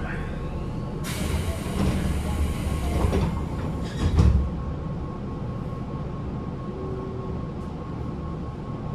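Running noise inside a Tobu 9050-series electric multiple unit car with Toyo GTO-VVVF control, under way with its air conditioning running. A louder rush of rail noise comes from about a second in to about four and a half seconds, peaking with a heavy low thump near the four-second mark.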